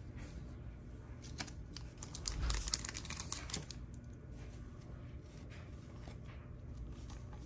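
Trading cards and foil pack wrappers being handled on a table: scattered light clicks and taps, with a short crinkling rustle of wrapper about two and a half seconds in.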